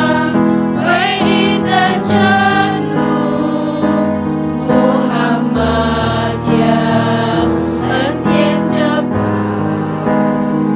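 Background music with sustained choir-like voices over held chords that change every second or so.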